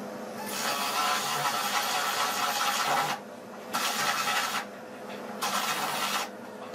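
Maktec MT362 plunge router running, its bit cutting into a wooden door panel in three passes: a long cut of about two and a half seconds, then two shorter ones, with the motor humming on its own in the pauses.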